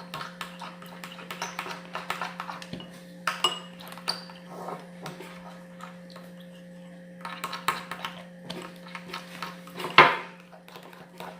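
A utensil clinking, tapping and scraping against a container as slime is stirred with activator, in irregular small taps, with a louder knock about ten seconds in. A steady low hum runs underneath.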